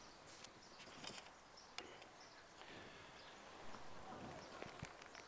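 Near silence: quiet open-air room tone with a few faint, soft ticks.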